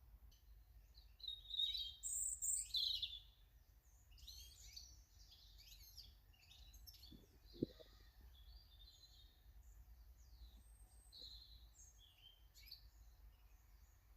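Small garden birds chirping and calling, loudest in a cluster of calls over the first few seconds, then a run of short chirps. A single brief knock a little past halfway.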